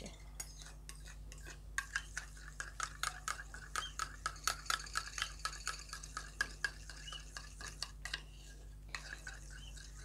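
Metal spoon stirring in a small stainless steel bowl, clinking quickly and regularly against the side while mixing bird hand-feeding formula with hot water to break up lumps. The stirring stops briefly near the end, then a few more clinks.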